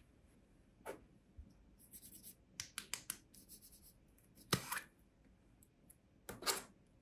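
Small plastic beads clicking and rattling faintly as hands drop and sort them into a metal muffin tin, a quick run of light clicks in the middle. Near the end come two louder scrapes as a small plastic screw-top pot of beads is handled and its lid twisted off.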